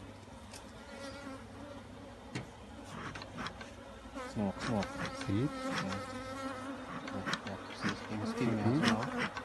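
Honeybees buzzing around an open hive in a steady hum. From about halfway through, single bees fly close past and their buzz swoops up and down in pitch.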